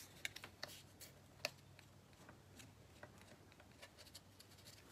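Near silence: room tone with a few faint taps and rustles of paper pieces being handled, the clearest a single tap about a second and a half in.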